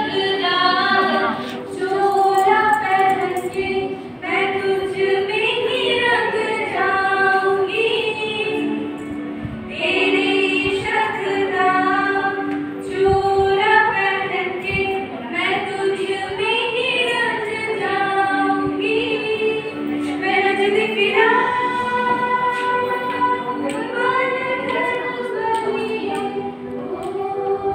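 Two women singing a song together, with long held notes.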